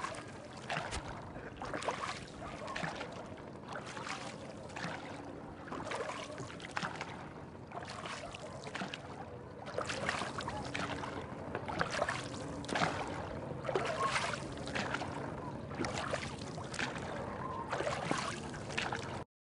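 Rowboat's bamboo-shafted oar dipping and splashing into river water, about one stroke a second, over the steady wash of water along the hull; the sound cuts off abruptly near the end.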